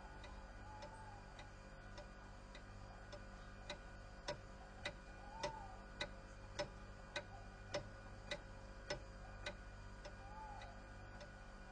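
Clock ticking steadily, a little under two ticks a second, the ticks loudest in the middle and fainter toward the end, over a faint steady hum.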